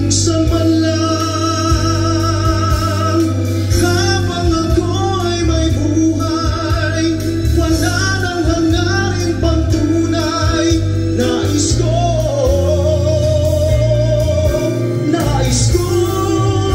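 Male vocalist singing a ballad live into a microphone, holding long notes with a wavering vibrato, over instrumental accompaniment.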